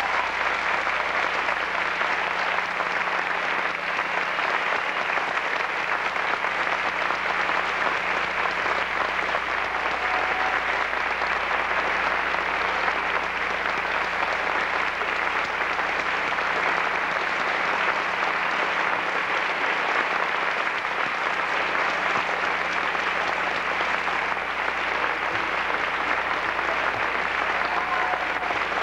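Audience applauding, a steady, sustained clapping with no letup.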